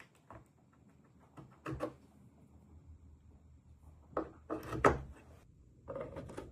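A few light knocks and clacks of hard objects being handled: a pair about two seconds in and a cluster of three around four to five seconds.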